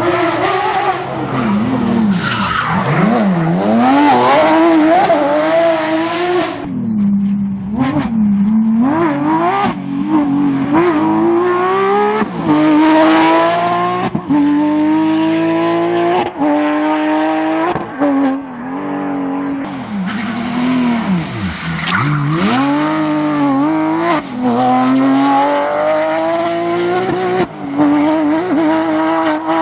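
Porsche 911 GT3 rally car's flat-six engine revving hard, its pitch climbing through each gear and dropping sharply at the shifts, falling deep twice when the car slows.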